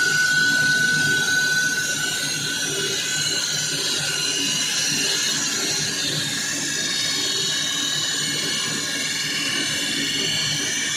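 Walk-behind floor saw running steadily, its diamond blade cutting into a concrete floor, with a high whine that fades over the first few seconds.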